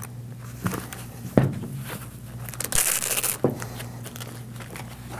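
Soft padded carrying case of a digital refrigerant manifold being opened and handled: fabric rustling and crinkling, with a few light knocks as the unit inside is moved.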